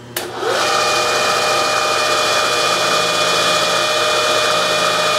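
Bridgeport milling machine's spindle switched on with a click, whining up to speed within about half a second, then running steadily with a countersink in the drill chuck.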